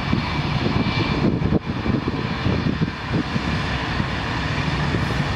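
Airbus A330-900neo's Rolls-Royce Trent 7000 turbofans running at taxi power: a steady jet rumble with a faint high whine, dipping briefly about one and a half seconds in.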